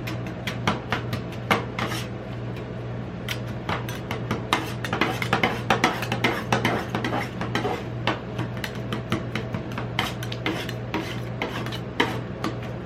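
Metal spatulas tapping, chopping and scraping on the frozen steel plate of a rolled ice cream pan, working the Shani drink into the ice cream base. Rapid irregular clacks and scrapes run over a steady low hum.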